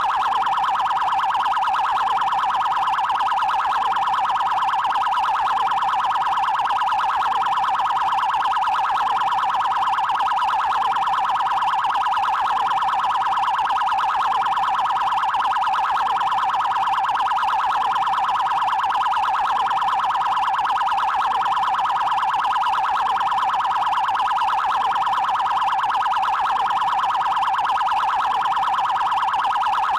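Brazilian Federal Highway Police (PRF) 'Trail' electronic siren in its 'prioridade' tone: a rapid, continuous warble held around one pitch. It runs without pause and does not change in loudness.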